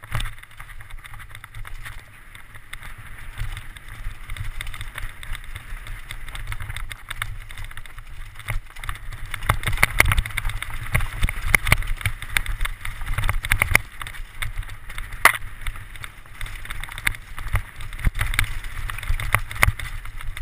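Downhill mountain bike ridden fast over a rocky, rooty trail: wind on the helmet-mounted microphone and tyres rumbling over the ground, with frequent knocks and rattles from the bike. The knocks come thickest and loudest about halfway, as the bike crosses a field of loose rocks.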